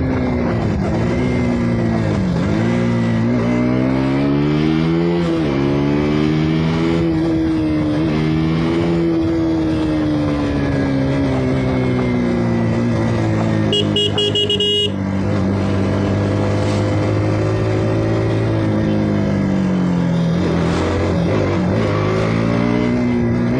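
KTM RC 200's single-cylinder engine through its stock exhaust while riding: the pitch climbs under throttle and drops sharply at gear changes, several times over. A brief steady horn tone sounds about two-thirds of the way through.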